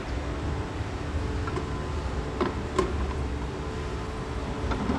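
Steady hum of factory machinery and ventilation, with a few light clicks and knocks as plastic bottles are handled on a filling-machine conveyor.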